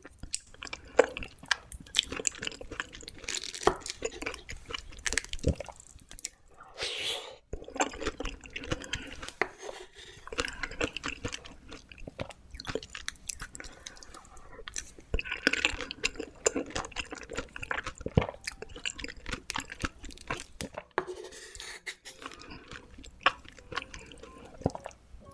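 Close-miked eating of a chilled, juicy peach dessert filled with whipped cream and Nutella: repeated bites and wet chewing, with many small sharp clicks and smacks.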